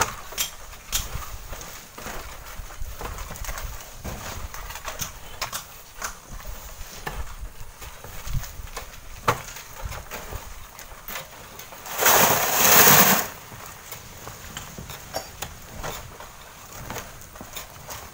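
Irregular clicks and knocks of long bamboo poles scraping and prying at a sandy cliff face, with wind rumbling on the microphone. About twelve seconds in, a loud rushing hiss lasts about a second.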